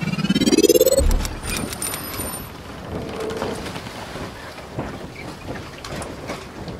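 Intro logo sound effects: a rising whoosh that ends in a deep boom about a second in, a brief high shimmer, then a steady rushing, crackling noise.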